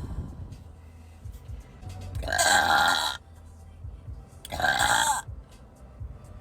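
A person burping loudly twice. Each burp lasts about a second; the first starts about two seconds in and the second about two seconds after it.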